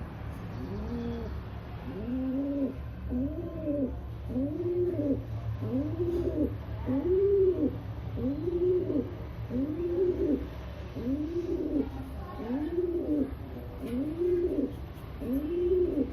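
Rock pigeon cooing: a long run of repeated coos, each rising then falling in pitch, about one every 0.8 seconds, starting about a second in. A steady low hum sits underneath.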